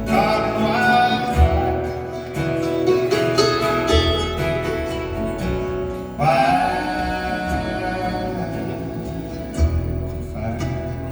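Live acoustic folk music: guitar chords struck every couple of seconds under long held melody notes.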